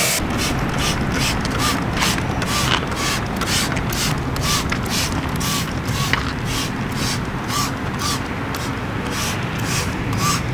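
Trigger spray bottle squirting iron-remover decontamination spray onto the car's paint in quick repeated hisses, about two to three a second.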